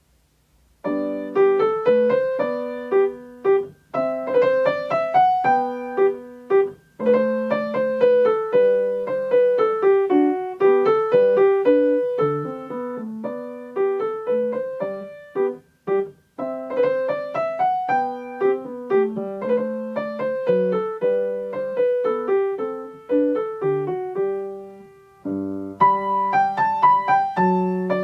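Solo piano music: a slow classical piece with a melody over chords, starting about a second in with a couple of brief pauses between phrases.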